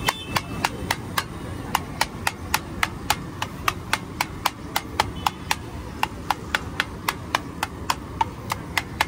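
Metal spatula chopping through potato patty mix and striking a large flat steel tawa griddle: sharp, evenly paced clinks about three a second.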